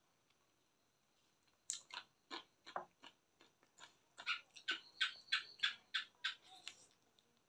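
Close-miked chewing and lip-smacking of a person eating chicken with rice. After a quiet start it is a run of short, wet smacks, settling into about two or three a second in the second half.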